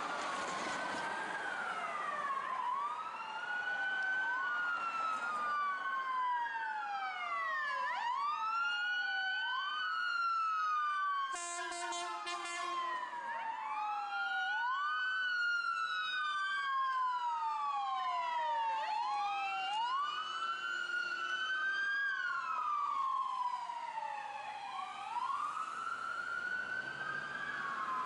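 Two emergency-vehicle sirens wailing out of step, each rising and falling in pitch every few seconds: an LAFD rescue ambulance and fire engine leaving on a Code 3 response. A short pulsing horn blast cuts in about a third of the way through.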